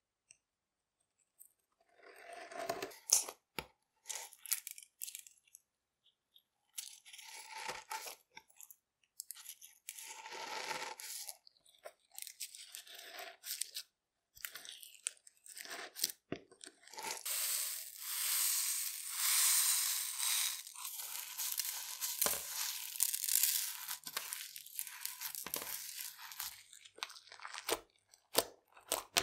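Slime being stretched, pressed and kneaded with rainbow sprinkles mixed into it: sticky crackling and crunching. It comes in separate short bursts for the first half, then runs on continuously for about ten seconds, with sharp clicks near the end.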